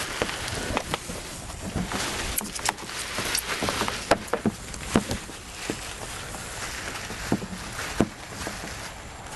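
Packing being pulled off by hand: plastic wrapper crinkling and styrofoam packing creaking and knocking, with irregular crackles and light taps.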